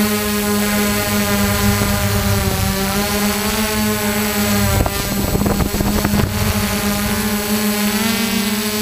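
Multirotor drone's DJI E300 electric motors and propellers running close to the microphone: a steady buzzing hum with a strong low tone and many overtones, its pitch wavering slightly. About five seconds in, wind buffets the microphone for over a second.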